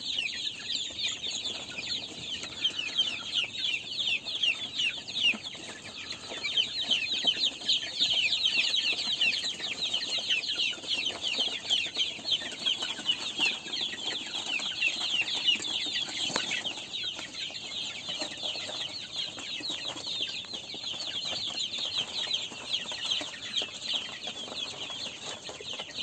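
A large flock of young chicks peeping in chorus: many short, high, falling peeps overlapping without pause.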